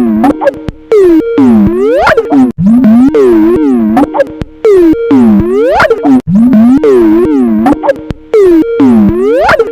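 Skype ringtone melody looping at a very loud level, warped so that its notes swoop down and back up in pitch, with short drop-outs between phrases.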